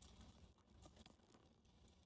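Guinea pig chewing a fresh corn leaf: a few faint crunching clicks that thin out after about a second.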